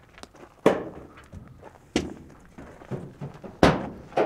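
Three loud, sharp thunks about a second and a half apart, each ringing briefly: people knocking and stepping against the hollow metal body of an old airplane as they climb into it.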